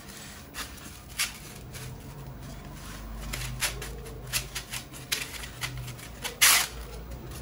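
Expanded polystyrene foam rubbing on foam as a hot-wire-cut piece is slid and lifted out of its block: a string of short scratchy squeaks and scrapes, the loudest a longer scrape about six and a half seconds in.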